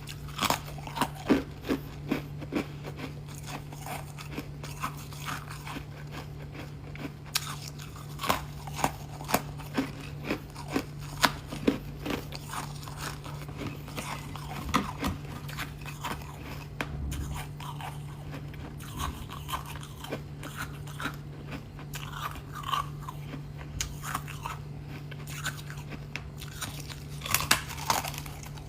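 Thin foam ice being bitten and chewed close to the microphone: irregular sharp crunches and crackles, several a second at times, over a steady low hum.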